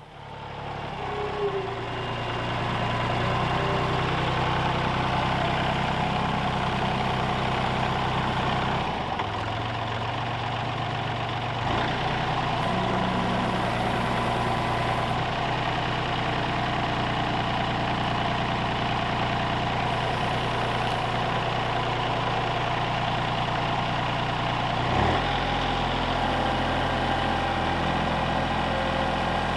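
An engine starting up and then running steadily, its pitch stepping slightly a few times.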